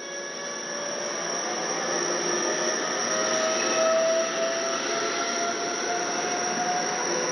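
Local electric multiple-unit train pulling out of the station, its traction motors whining in a tone that climbs slowly in pitch as it gathers speed, over the noise of the wheels. It grows louder over the first few seconds, then holds steady.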